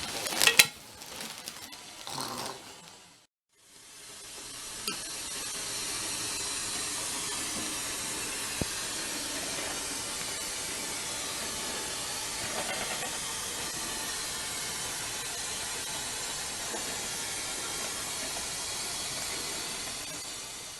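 A short loud burst about half a second in, then after a brief gap a steady static hiss fades in and runs on evenly.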